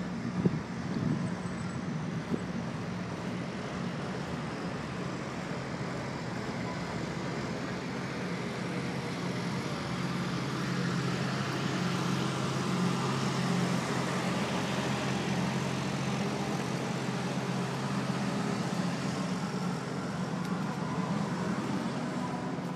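Motor vehicle traffic noise: engines running with a steady low hum under a broad rush, swelling somewhat midway. A brief knock about half a second in.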